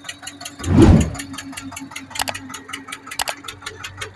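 Eicher 242 tractor's diesel engine running under load, hauling a loaded trolley through sand, with a steady knocking beat. There is a loud low rush about a second in.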